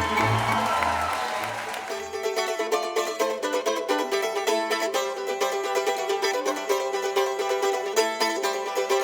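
Mandolin playing a fast run of plucked notes. In the first two seconds a held chord fades out over a low pulsing beat.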